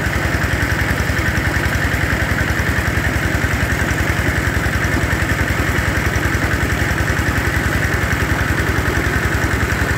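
Engine-driven water pump running steadily with an even, fast throb, loud and unchanging, as it sucks the last water out of a fish pond.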